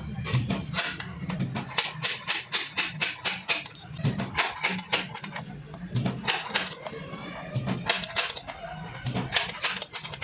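Rapid, irregular hammer taps on a car's sheet-metal side panel, several strikes a second, as a dent is worked out.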